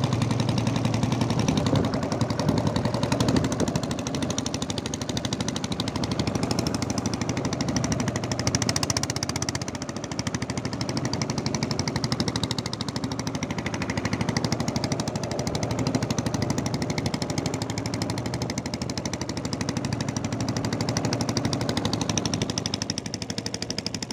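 Small wooden boat's engine running steadily under way, a fast, even pulsing.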